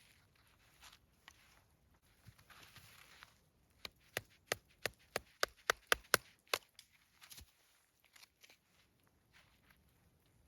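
A quick run of about ten sharp chopping blows, roughly three a second, from a large folding knife hacking at something, then a couple of lighter knocks; handling noise around them.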